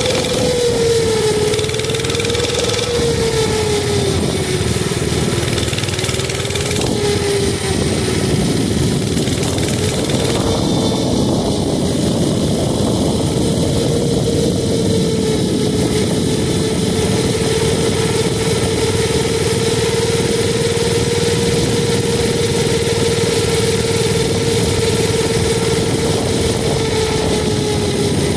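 Mini bike's small engine running under way. Its pitch rises and falls for the first several seconds, then holds steady at cruising speed.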